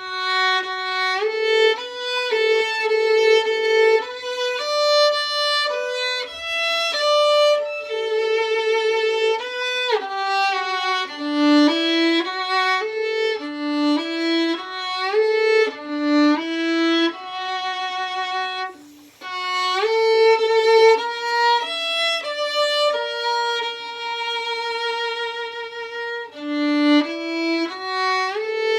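Solo violin playing a slow, gentle melody from a Japanese winter children's song, with sustained bowed notes and vibrato. The playing starts at once after quiet and breaks off briefly about two-thirds of the way through.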